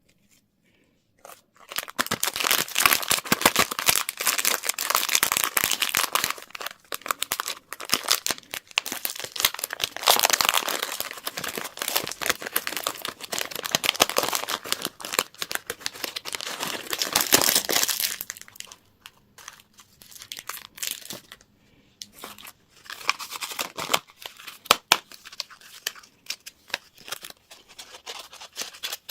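Candy and toy packaging being crinkled and torn open by hand: dense crackling of wrapper material for most of the time, thinning out to scattered, quieter crinkles with short pauses near the end.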